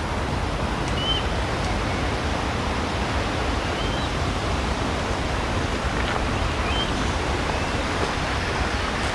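Steady rushing noise with short high chirps every second or two.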